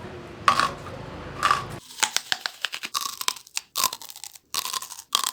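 A raw carrot being bitten and crunched as a foley stand-in for a bone breaking: sharp, crisp crunches. There are two single crunches, then about two seconds in a rapid run of crackling snaps in clusters.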